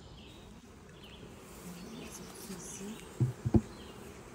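Honeybees buzzing close by, the pitch wavering as individual bees fly past. A few short, sharp knocks come about three seconds in.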